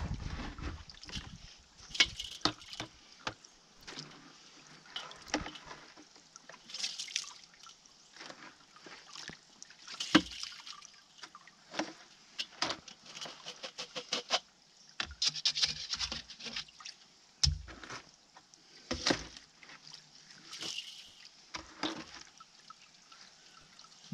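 Water sloshing and trickling as concentrate is scraped and rinsed out of a homemade hydrocyclone bowl, a converted Weber kettle barbecue bowl, into a pan. Irregular scrapes and knocks of a plastic scraper against the bowl sound between splashes.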